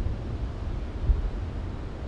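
Storm sound effect: a low rolling thunder rumble under steady wind-like noise, with a brief louder swell about a second in.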